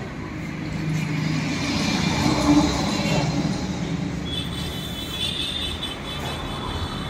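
Street traffic noise, with a vehicle passing that swells louder a second or two in. A high steady tone joins in the second half.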